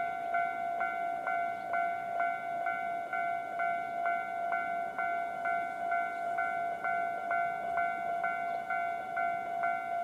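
Railway level-crossing warning bell ringing in its standard tone, an even, repeated electronic ding at about two strikes a second.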